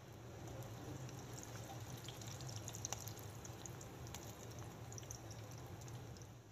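Hot oil sizzling and crackling around tuna cutlets deep-frying in a wok, with scattered small pops and one sharper pop about three seconds in, over a steady low hum.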